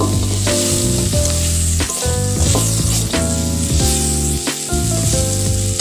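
Boiled fusilli pasta frying and sizzling in oil in a kadai, stirred and scraped with a metal spatula. Background music with a steady bass line plays over it.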